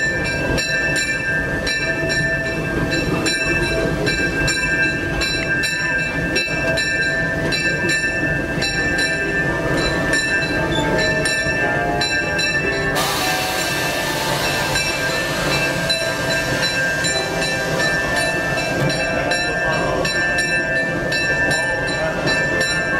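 Cab of a narrow-gauge steam locomotive under way: a steady mechanical clatter and hiss with steady high tones, and regular clicks through the first ten seconds or so. About thirteen seconds in a rush of hiss rises for about two seconds, then drops back.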